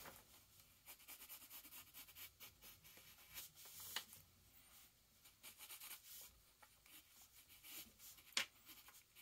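Pencil sketching on paper: faint, short scratchy strokes in quick runs, with brief pauses between them.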